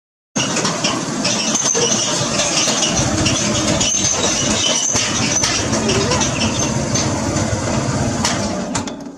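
Motorcycle engine running, loud and steady, with the rider's hand on the throttle grip. It cuts in suddenly about half a second in and fades near the end.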